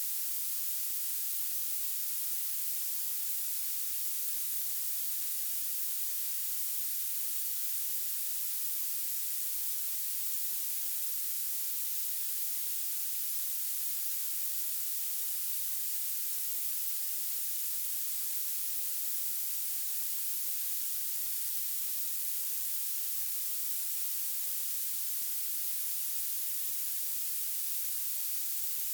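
Violet noise: a steady, even, high-pitched hiss, heaviest in the treble, with almost no bass.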